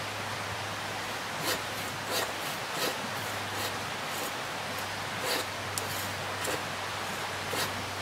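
Steady rushing of river water, with a series of short light clicks or taps every half second to second.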